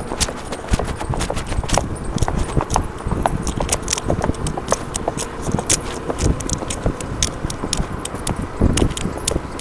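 A ridden horse's hooves beating rapidly on a dirt track, several sharp strikes a second, over a steady low rumble.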